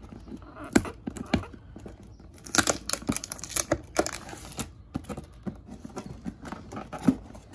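Cardboard box being opened by hand: taps and scrapes of cardboard, with a longer stretch of tearing and crinkling about two and a half seconds in.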